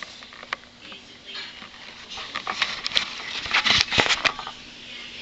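Irregular clicks and scrapes, loudest in a quick cluster about three and a half to four seconds in: a cat's plastic cone collar knocking and scraping against a tile floor.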